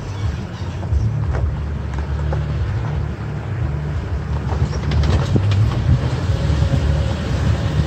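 Toyota Tacoma pickup crawling slowly on a rocky dirt trail: a steady low engine drone, with scattered clicks and crunches of the tyres rolling over gravel and stones.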